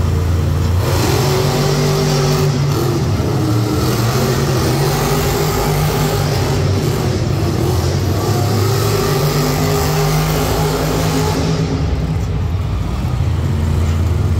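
Monster truck engine running loud and revving, a low drone whose pitch shifts up and down.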